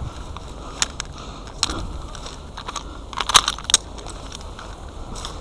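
Scattered sharp clicks and light knocks over faint background noise, with a small cluster of them about three seconds in.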